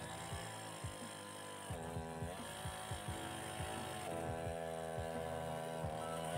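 Gasoline chainsaw running with its bar buried in a log, the engine pitch sagging and recovering several times as it cuts. The operator says the saw is acting up on this cut.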